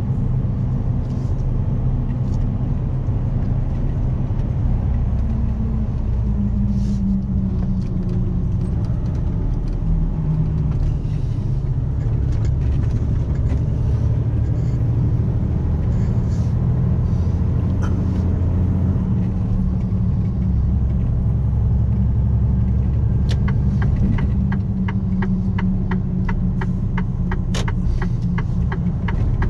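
Lorry engine running under way, heard from inside the cab, its pitch stepping up and down several times with engine speed and gear changes. From about two-thirds of the way in, the turn-signal indicator ticks steadily, about twice a second.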